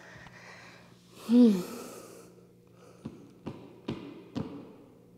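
A woman's exhausted groaning exhale, falling in pitch, then heavy breathing as she rests after a hard plank set. Four short light knocks follow a little apart near the end.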